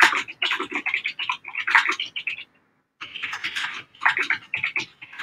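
Typing on a computer keyboard: a quick, irregular run of keystroke clicks with a short pause about halfway through.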